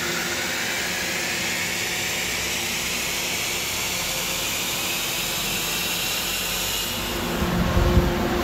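A 2020 Ford Explorer ST's twin-turbo V6 pulls at full throttle on an all-wheel-drive chassis dyno, together with tyres spinning on the rollers: a loud, steady rush whose whine rises slowly in pitch as the revs climb. About seven seconds in, the rise ends and gives way to a lower rumble as the pull finishes.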